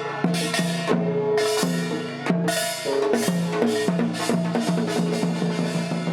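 Samulnori percussion ensemble playing: drums and gongs struck in a fast, driving rhythm, with bright metallic clangs over ringing tones.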